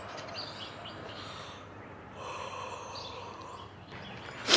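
Outdoor ambience with small birds chirping softly, and just before the end a sudden loud rush of air on the microphone.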